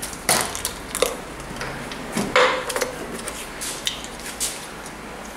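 Irregular clinks, knocks and rustles of metal parts and a spray can being handled on a workbench.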